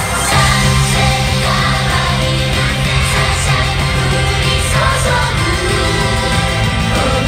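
Idol J-pop song performed live: a group of young women singing together into handheld microphones over a loud backing track with a steady beat.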